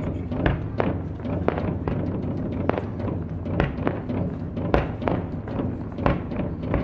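Sharp thuds and knocks at uneven intervals, sometimes two or three within a second, over a steady low rumble.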